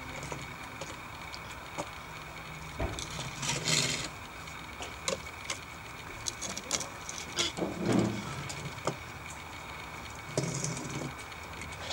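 Small toy cars clicking and knocking against wet wooden deck boards as they are set down and pushed, in scattered light taps. A brief hiss about four seconds in and a short low sound near eight seconds are the loudest moments.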